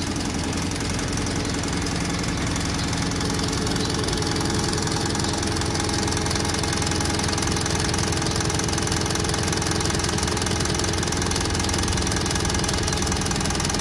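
Fuel pumping equipment at a tanker loading rack running steadily while fuel flows through the meter. It makes a low hum with a dense, rapid throb that holds even throughout.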